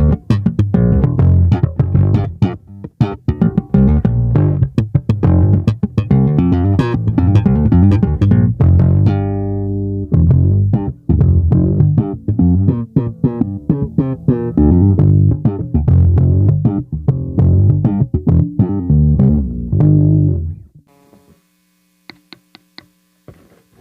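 Yamaha ERB 300 II electric bass with PJ pickups played solo: a busy run of plucked notes with one held, ringing note about nine seconds in. The playing stops about 21 seconds in for a short quiet gap with a few faint ticks, and picks up again at the very end.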